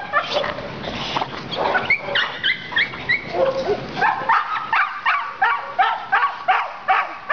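A pit bull barking and yelping: high, whiny yelps at first, then from about four seconds in a quick, even run of short barks, about three a second.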